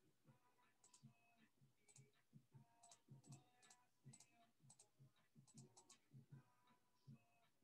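Near silence, with faint irregular clicks about two a second.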